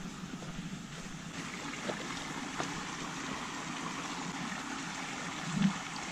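Shallow creek trickling over rocks, a steady watery rush, with a few footsteps on the dirt trail and a low thump near the end.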